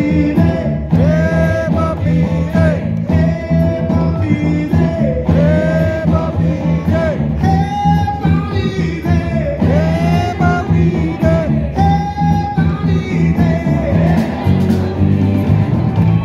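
Live rock and roll band: a male lead vocal over electric guitar, electric bass and drums. The singing stops about two seconds before the end, leaving the band playing on.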